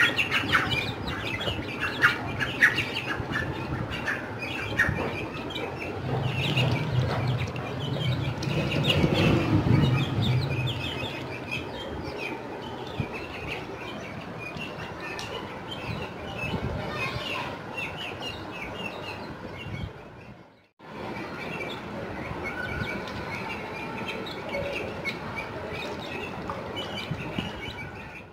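Chicks and ducklings feeding, with many short, overlapping peeps and chirps; the sound drops out briefly about two-thirds of the way through.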